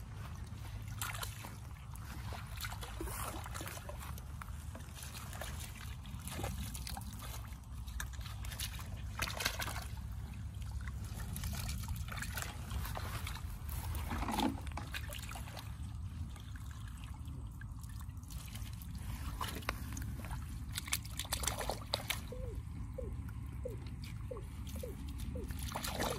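Shallow muddy water sloshing, splashing and trickling as a woven bamboo scoop basket is swept through a flooded rice field and lifted, the water draining out through the weave. A steady low rumble runs underneath.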